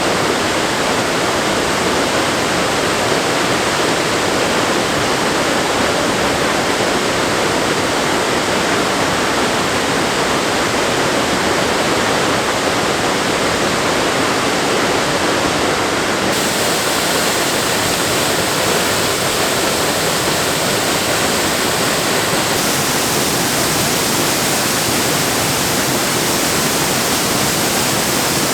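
Waterfall in heavy flow: a loud, steady rush of falling water. Its hiss shifts slightly twice, about 16 and 22 seconds in.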